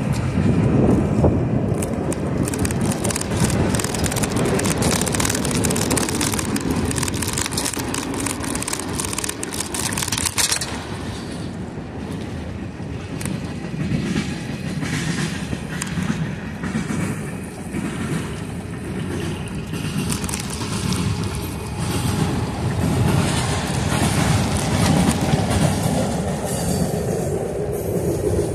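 BNSF freight train passing, a continuous rumble of its cars with some wheel clatter, heard from a moving bicycle with wind noise. For about the first ten seconds the bike's tyres clatter over the boards of a wooden bridge deck, stopping abruptly.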